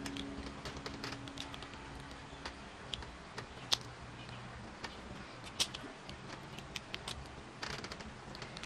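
Scattered light clicks and taps of small plastic candy-shaped highlighters being handled, knocking together, with a cap pulled off near the end, over a low hiss.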